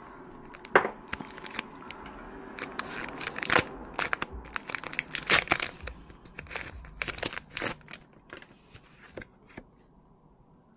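Foil wrapper of a Pokémon booster pack crinkling and tearing as it is pulled open, a quick run of sharp crackles that thins out and stops near the end.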